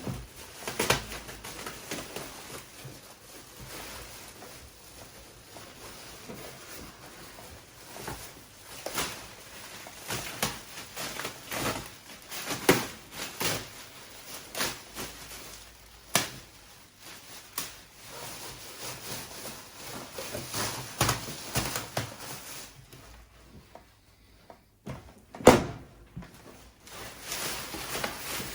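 Irregular knocks, clunks and clicks of bike parts and packaging being handled and set down, with one louder knock near the end.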